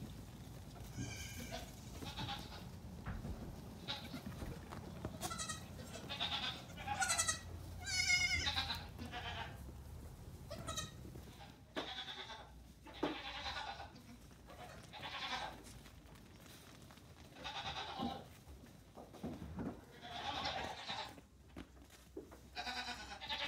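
Nigerian Dwarf goat kids, a few days to two weeks old, bleating again and again in short, high, quavering calls, loudest about eight seconds in.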